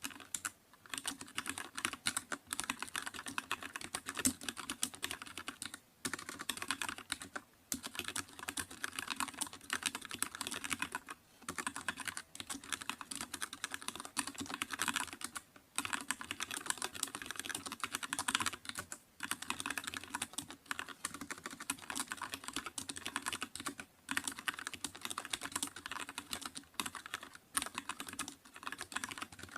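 Continuous typing on a computer keyboard: rapid, clattering keystrokes in runs of a few seconds, broken by brief pauses.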